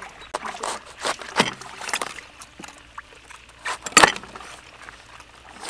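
Cleaver chopping cabbage on a wooden chopping board: a few sharp chops, the loudest about four seconds in.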